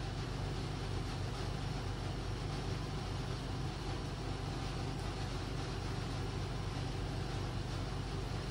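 A steady low mechanical hum and rumble, even throughout, with no distinct events.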